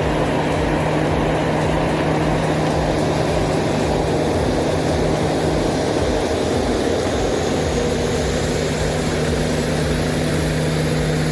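Heavy diesel engine running steadily, with a constant low hum held at one pitch.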